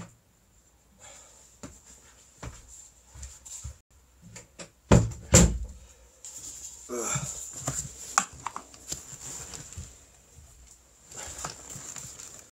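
Off-camera handling noises as a person moves things about in a small cabin: scattered knocks, two loud knocks about five seconds in, and rustling and clatter, with a faint steady high whine behind them.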